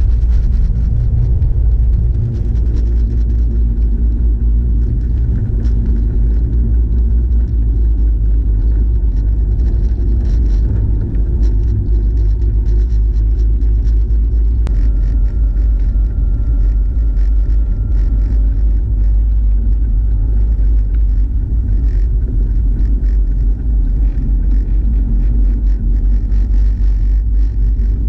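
Car in motion, heard from inside the cabin: a steady, deep rumble of engine and road noise.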